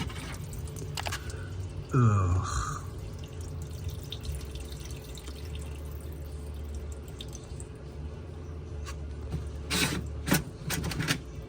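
Dirty water trickling and dripping out of a front-load washer's opened drain pump housing. A few sharp clicks or knocks come near the end.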